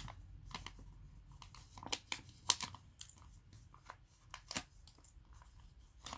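Rustling and crinkling of an adhesive label sheet being peeled and pressed onto the back of a mounted rubber stamp, with scattered light taps; two sharper clicks stand out, about two and a half seconds in and just before five seconds.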